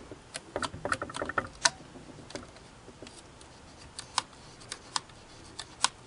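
Irregular light clicks and ticks of small metal parts in a Singer 401A sewing machine's cam-selector mechanism as the selector is worked by hand, with a short squeak about a second in. The follower pin is caught up on top of a cam rather than dropping.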